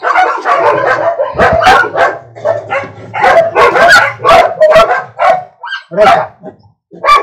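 Dog barking repeatedly in short, sharp barks, about two a second, easing briefly near the end.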